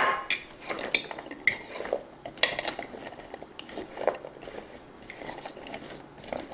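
Metal utensil stirring cut okra pieces through beaten egg white in a glass mixing bowl, clinking and tapping against the glass at irregular moments.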